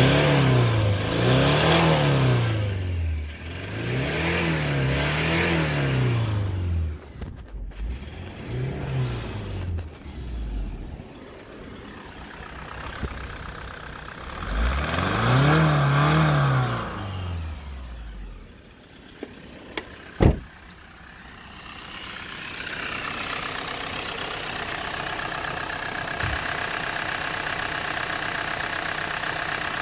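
Toyota 2AD-FTV 2.2-litre four-cylinder turbodiesel engine being blipped: it is revved up and let fall back several times in the first half. A single sharp click comes a little after the middle, and the engine then settles to a steady idle.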